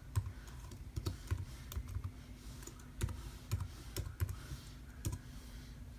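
Irregular key presses on a computer keyboard, a few sharp clicks and taps a second with pauses between, over a faint steady hum.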